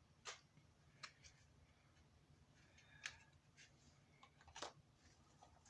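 Near silence with a few faint clicks and light rustles: small boxes of false eyelashes being handled.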